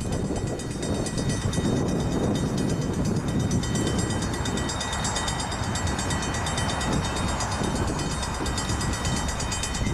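Diesel locomotive approaching, its engine running with a steady low rumble.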